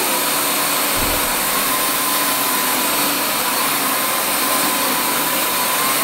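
Narwal S10 Pro cordless wet-dry floor washer running in its low-noise mode: the steady, even rushing of its suction motor with a faint steady whine in it.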